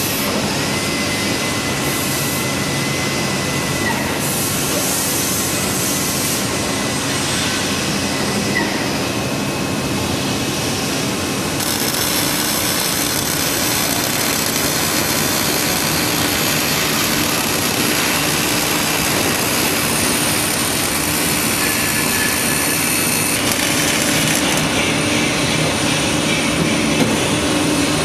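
Steady factory machinery noise: a continuous mechanical din with several held whining tones. It brightens about twelve seconds in and shifts again a little past the two-thirds mark.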